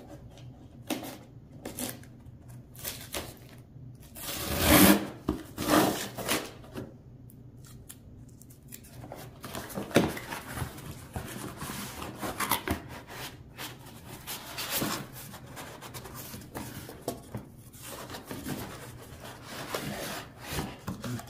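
Cardboard box being opened and unpacked by hand: irregular rubbing, scraping and rustling of cardboard, loudest about five seconds in, with a few sharper knocks.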